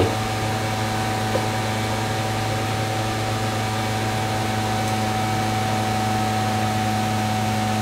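Steady machine hum with a few constant low tones over a light hiss, unchanging throughout.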